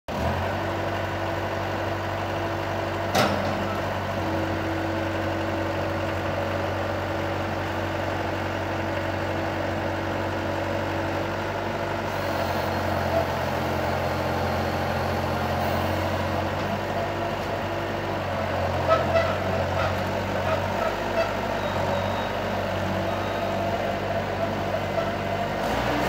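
Bobcat 853 skid steer's diesel engine running steadily, with a sharp click about three seconds in, a few shifts in its note around the middle, and scattered light clicks and knocks near the end.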